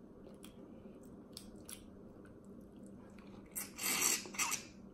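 Eating snow crab legs: light clicks of shell and crab pick, then a loud slurp and chew as the crab meat goes into the mouth about three and a half seconds in.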